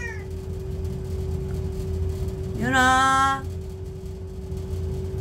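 Wall-mounted gas boiler running, giving a steady hum with a constant tone. A single drawn-out call comes about two and a half seconds in.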